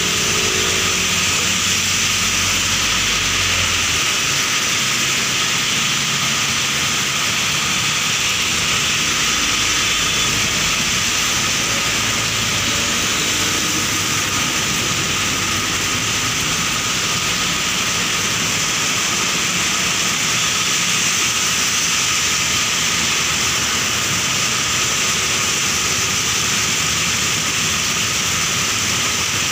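Heavy rain pouring down steadily on a wet road: a constant loud hiss. The low hum of a passing vehicle's engine fades out in the first few seconds.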